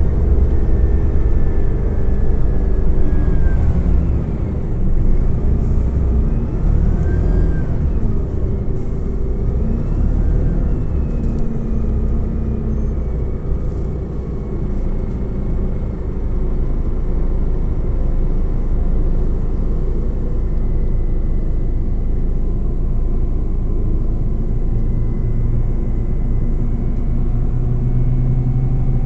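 Interior sound of a moving Scania OmniCity CNG city bus: a steady low rumble of the gas engine, drivetrain and road. A whine rises and falls a few times in the first ten seconds as the bus changes speed.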